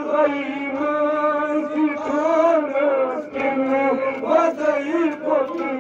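A man chanting a noha, a Shia mourning lament, into a handheld microphone, his amplified voice in long, wavering held notes with short breaks between phrases.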